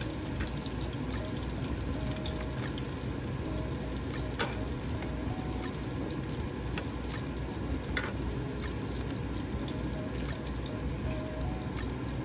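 Steady sizzle of chicken frying in oil, with faint crackling throughout. Two sharper clicks, about four and eight seconds in, from chopsticks against the stainless mesh strainer.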